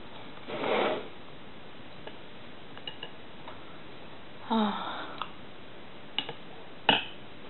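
Eating at a table: a metal spoon clicking a few times against a porcelain bowl, sharpest twice near the end, with a breath near the start and a brief vocal sound about halfway through.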